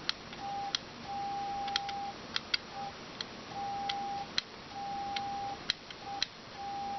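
Morse code sent slowly on a straight key and heard as the radio's sidetone: a single steady tone beeping in dots and dashes that spell the end of C and all of Q in a CQ call. A sharp click marks the start and end of each beep. The radio is keyed through a relay by a wireless Arduino keyer.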